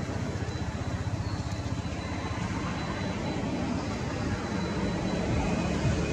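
Steady engine rumble from a motor vehicle, getting a little louder near the end.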